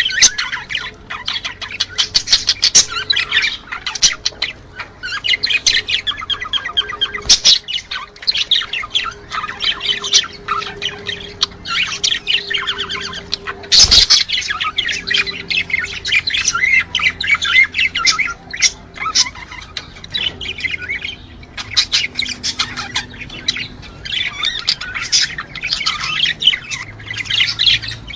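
Budgerigars chattering and warbling in a dense stream of rapid chirps and squawks, the breeding-season chatter used to bring pet budgies into breeding condition. Two sharp clicks cut through it, about seven seconds in and halfway through.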